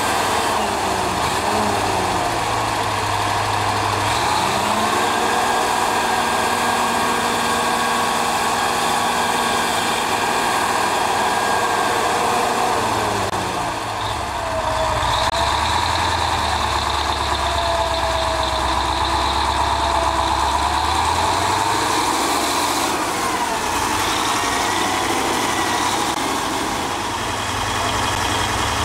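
Heavy tractor diesel engines running under load as a Ford FW-60 four-wheel-drive tractor tows a forage wagon through soft field ground; the engine note shifts up and down several times.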